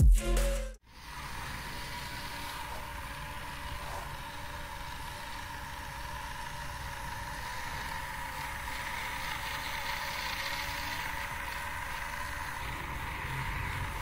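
Music cuts off under a second in, then the toy car's 3 V geared DC motors run with a steady whine as the line follower robot drives along the taped track, growing slightly louder towards the end.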